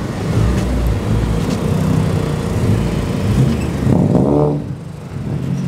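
Car engine running as a sedan pulls slowly across a parking lot, with a brief rev rising in pitch about four seconds in.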